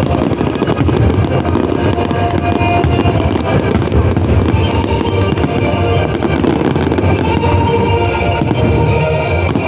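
Fireworks going off in a rapid stream of pops and bangs over loud music.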